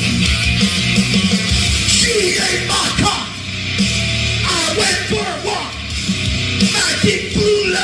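Heavy metal song with a loud full band and a yelled vocal line over it.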